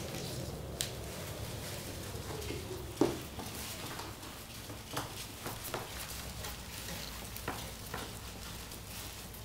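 Ferrets rummaging in a plastic tub of shredded paper: a continuous crackly rustle of paper strips, with scattered small knocks and clicks and one louder thump about three seconds in.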